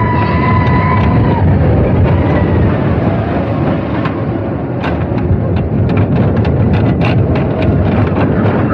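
Roller coaster train running fast along its track, heard from the front seat as a loud, steady rumble of wheels and rushing air. A high steady tone rings for about a second and a half at the start, and a quick run of sharp clicks comes through the middle.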